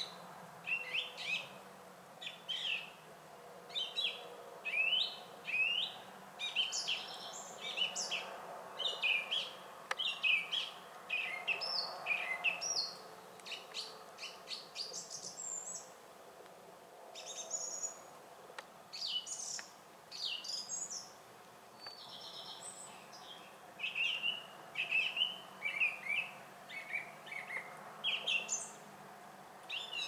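Songbirds singing: quick runs of short, high chirps and trills, one phrase after another, with a short lull about two-thirds of the way through.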